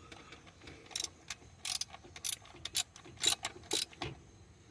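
Hand ratchet clicking in a series of short, irregular strokes as it tightens the nut holding a knock sensor onto the engine block.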